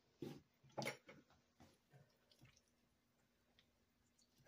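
Near silence, broken by a couple of short clicks in the first second and a few faint ticks and squishes after, as a serving utensil is handled and pushed into the cooked chicken and rice in a slow cooker.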